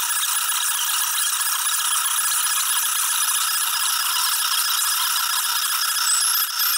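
Stepper motors and axis drives of a home-built CNC machine running as it moves a pen through a drawing: a steady, high-pitched whine with a rattle, with a few short rising chirps near the end as the motors change speed.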